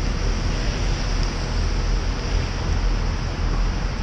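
Steady rush of wind over the microphone of a camera on a moving bicycle, with a constant low rumble and the hiss of riding along a wet city road in traffic.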